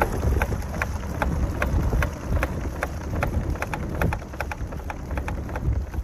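Loose tire chains on a Ram ProMaster camper van thumping against the wheels and body as it drives, a regular knock about two to three times a second over low road rumble. The chains are slack and need readjusting and tightening.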